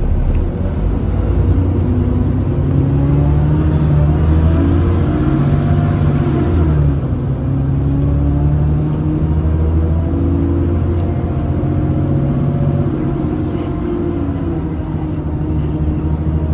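Enviro 400 double-decker bus's diesel engine pulling away and accelerating. Its note climbs, drops back as the automatic gearbox changes up, and climbs again several times, with a faint high whine over it.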